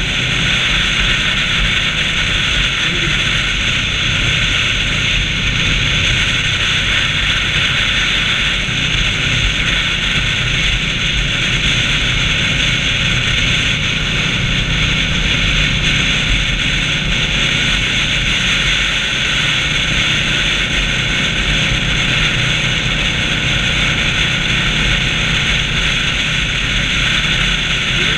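Steady wind rush over the microphone with the low, even drone of a motorcycle engine cruising at highway speed. The bike is an Indian Scout V-twin.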